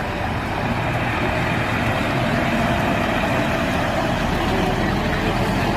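Heavy truck engine running steadily, played as the sound of a cement mixer truck.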